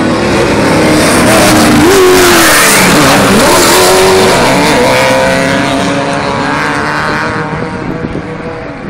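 Off-road race buggy's eight-cylinder engine revving hard as it passes close by, its pitch rising and dropping several times. It then fades as the buggy pulls away down the dirt track.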